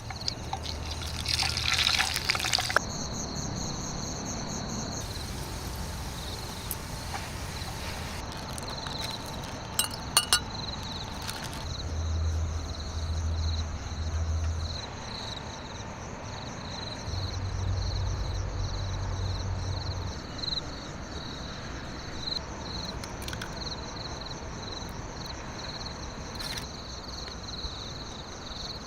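Water pouring and trickling, with a few clinks, over a steady high, pulsing chirr of insects.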